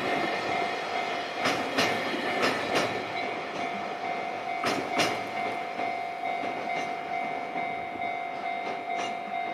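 Railway freight wagons rolling past, their wheels clicking over rail joints in spaced pairs, while a level crossing warning signal sounds steadily. The signal stops just after the train clears.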